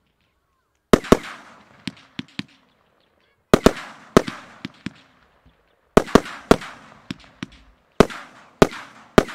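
Blackboxx Sauron 13-shot, 30 mm consumer firework battery firing, its shots and shell bursts giving sharp bangs from about a second in. The bangs come in clusters about every two to two and a half seconds, each followed by a short fading tail.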